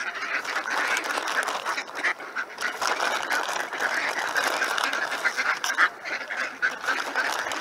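A crowd of ducks quacking and chattering, many short calls overlapping without a break.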